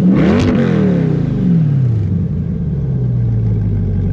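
C8 Corvette V8 breathing through a Borla aftermarket exhaust, revved once near the start, then falling back to a steady idle about two seconds in; a lower rumble.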